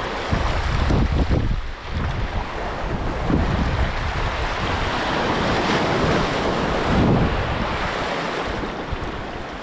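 Small sea waves washing in over a rocky, stony shoreline. Wind buffets the microphone, heaviest in the first couple of seconds.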